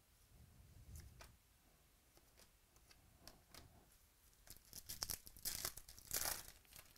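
Clear plastic card sleeve and holder crinkling as trading cards are handled and slid in: a few faint clicks, then about two seconds of crinkling in the second half.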